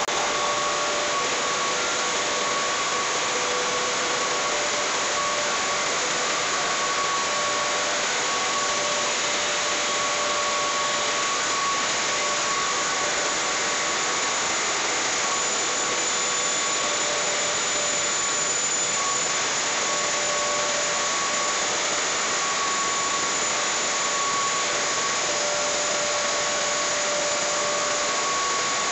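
Maize flour milling plant running: a steady, dense whoosh of blowers, air conveying and roller mills, with faint steady whining tones over it.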